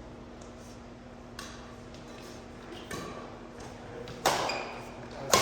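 Badminton rackets hitting a shuttlecock during a rally: four sharp hits about a second apart, the last two loudest.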